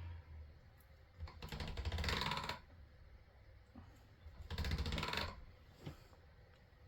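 Two short bursts of rapid clicking and rattling as blocks of polymer clay and supplies are handled and picked out on the desk. The first comes about a second in and the second about four and a half seconds in.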